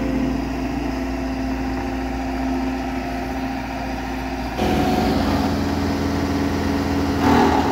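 Cat 299D3 compact track loader's diesel engine running steadily, a level hum that turns louder and rougher about four and a half seconds in.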